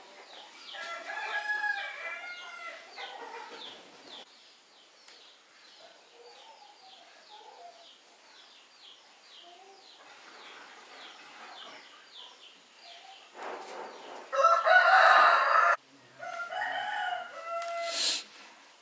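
Rooster crowing once, loud, about three-quarters of the way in, with chickens clucking before and after. A rapid run of short high chirps, about three or four a second, goes on through the first half.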